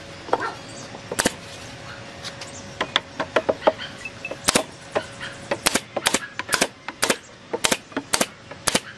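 Pneumatic nail gun shooting nails into wooden roof boards. One sharp shot about a second in, then from about halfway through a string of sharp shots, roughly two a second.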